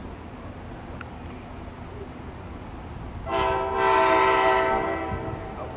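Nathan K5LA five-chime air horn on NJ Transit ALP-45DP locomotive 4530 sounding one blast of about two seconds, starting about three seconds in and fading out near the end, as the train blows for the road crossings.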